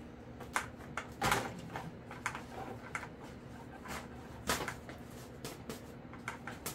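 Scattered light clicks and knocks of a carbon wing spar and the foam fuselage of an RC glider being handled and fitted together. The loudest come about a second in and again about four and a half seconds in.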